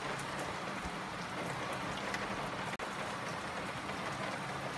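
Heavy rain falling steadily in a downpour, a continuous hiss with many faint drop ticks, cut for an instant a little past the middle.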